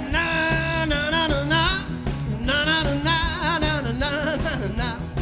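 Background music: a singer with a band over a steady bass beat.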